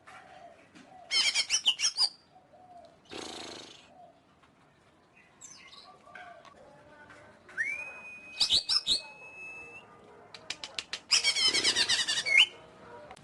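Cucak ijo (leafbird) singing in short bursts of rapid, varied chattering notes, with one long steady whistle near the middle.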